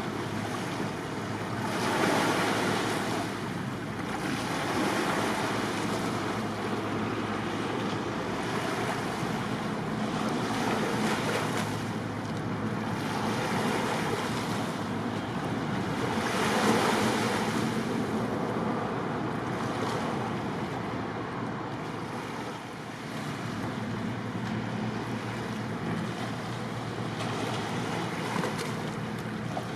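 Sea water washing in irregular surges every few seconds, with wind on the microphone, over a low steady engine hum.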